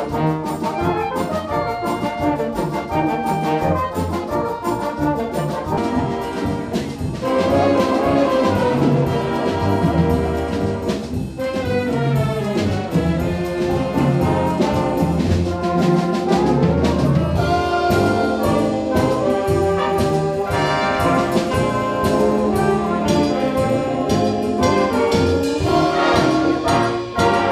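Fanfare band music: brass with clarinets playing a tune over a steady percussion beat.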